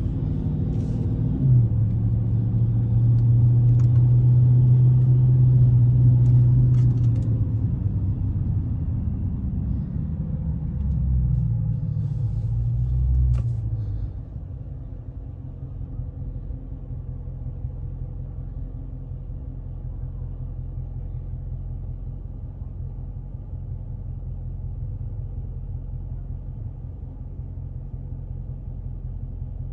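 Car engine and road rumble heard from inside the cabin while driving slowly, the engine note rising and falling. About fourteen seconds in it drops to a quieter, steady idle.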